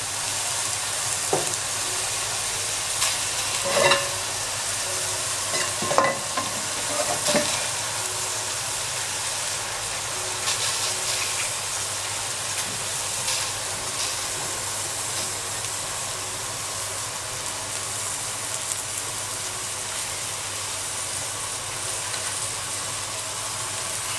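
Chunks of lamb sizzling steadily in an aluminium pot with no added oil, searing in their own melting fat over a lowered gas flame. A few short knocks come in the first several seconds.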